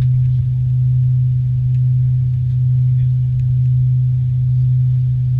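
Steady low hum inside the cabin of an Avro RJ85 airliner, one strong drone that swells and eases slightly in loudness.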